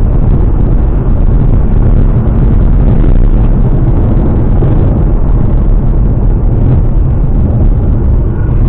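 Ford Mustang driving: a loud, steady low rumble of engine and road noise.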